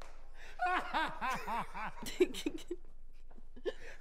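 A woman laughing: a quick run of 'ha' bursts, about four a second, lasting just over a second, then dying away into a few faint short sounds.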